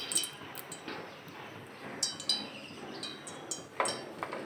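Several light metallic clinks, each ringing briefly and high, spaced irregularly over a faint steady hiss, from stainless-steel kitchenware at a gas stove.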